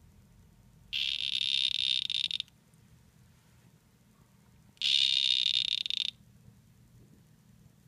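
Poison dart frog calling: two high-pitched calls of about a second and a half each, about four seconds apart.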